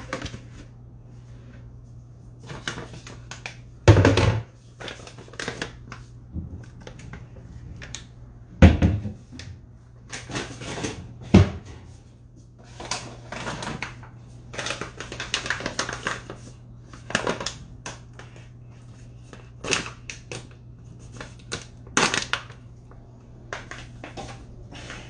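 Kitchen handling noises: irregular knocks, clicks and clatter of bowls, containers and cupboards being handled, with three louder thuds about four, nine and eleven seconds in, over a steady low hum.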